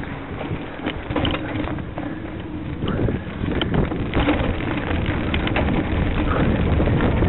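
Cyclocross bike riding over cobblestones: a steady rumble from the tyres with a scatter of rattles and knocks from the bike, and wind buffeting the microphone. It gets louder about four seconds in, once the bike is on the cobbles.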